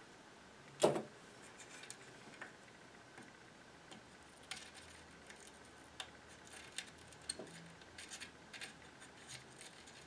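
Light clicks and taps of soldering work at metal terminal lugs, with one sharper click about a second in and a scatter of small ticks through the second half.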